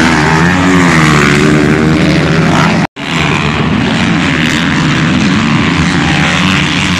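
Motocross dirt bikes racing, their engines revving up and falling back as the riders work the track. The sound drops out for a split second about three seconds in.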